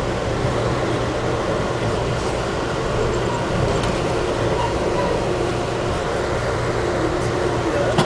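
Amtrak passenger coach in motion heard from inside the car: a steady running noise with a low hum.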